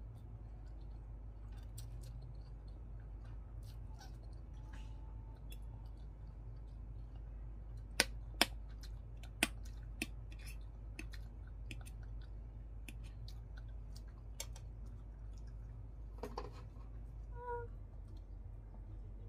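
Eating sounds: chewing and small mouth clicks, with a few sharp clinks of a metal fork against a plate of noodles about eight to ten seconds in, over a steady low hum.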